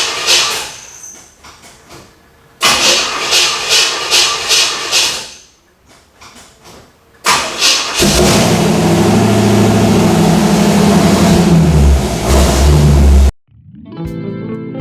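Pontiac Trans Am being started after sitting unused: the starter cranks it twice without it firing, then on the third try the engine catches about eight seconds in and runs loud for several seconds. It cuts off abruptly into guitar music near the end.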